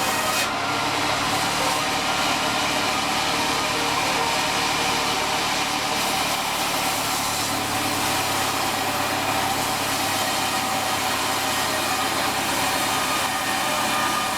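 Sawmill machinery running steadily: an even engine drone with a hiss over it and no change in pitch.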